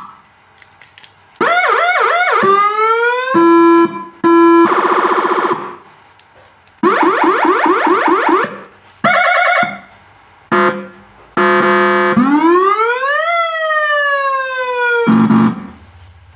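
Whelen 295R electronic siren running through its tones in short bursts with pauses between them: quick up-and-down yelps, two steady alternating notes, a harsh buzzing horn tone, a fast warble, and a slow rising then falling wail. Both the remote and the injected tone kit are working.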